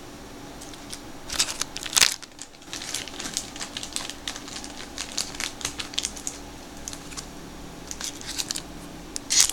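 Wrapper of a trading-card pack crinkling in the hands as it is handled. It makes a run of sharp crackles and rustles, with louder bursts about a second and a half in and again just before the end.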